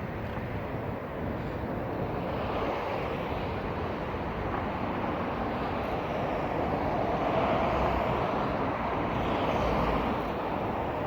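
Jet airliner engines at takeoff thrust, a steady rush of noise that swells and is loudest about two-thirds of the way through.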